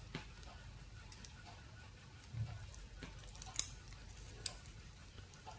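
Faint small clicks and snaps of a hand tool's jaws working the thin spot-welded metal sheet of a nixie tube's anode to pry it open, about four in all, the sharpest a little past halfway. A soft low handling bump comes about two and a half seconds in.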